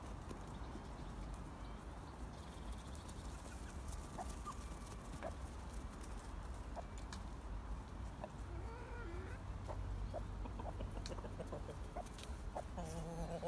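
Chickens clucking quietly: scattered short clucks over a steady low background rumble, with one more drawn-out call about nine seconds in.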